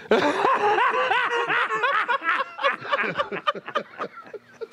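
Men laughing hard, a rapid run of short, high-pitched 'ha' sounds that thins out into scattered chuckles after about three seconds.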